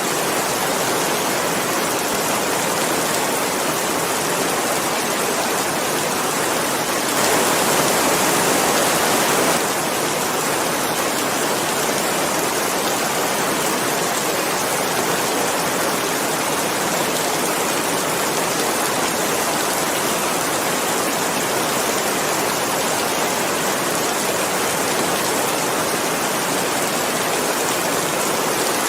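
Steady rain falling: a dense, even hiss of drops, briefly louder for a couple of seconds about seven seconds in.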